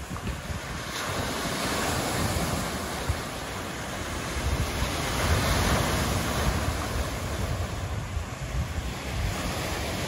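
Lake Michigan waves breaking and washing onto a shore of large boulders, a continuous surf wash that swells about halfway through. Wind buffets the microphone with a low rumble throughout.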